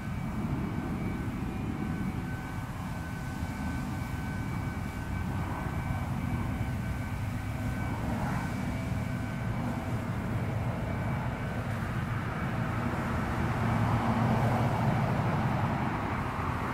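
Steady low rumble of distant engine noise, swelling louder near the end.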